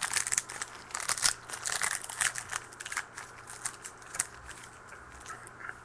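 Trading-card pack wrapper crinkling as it is torn open and handled, dense crackling for about three seconds, then thinning to scattered crackles.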